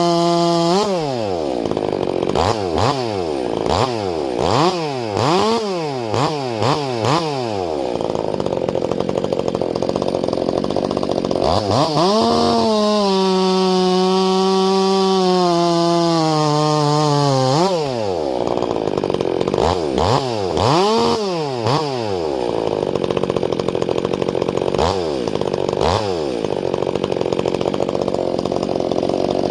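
Ported Stihl MS 362 C-M two-stroke chainsaw being revved: a burst of quick throttle blips, then held at high revs for about five seconds in the middle with the pitch slowly sagging, then more blips and a steadier, lower running toward the end.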